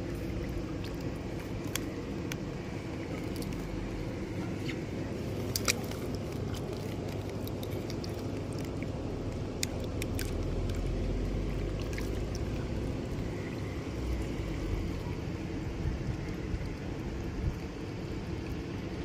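Water running from a pool heater's hose outlet into the pool, over a steady low rumble, with scattered small clicks and splashes.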